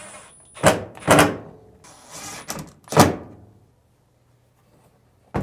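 Sharp metallic knocks and clunks from the dryer door and its hinge being handled and screwed back onto the steel dryer cabinet, three distinct knocks within the first three seconds.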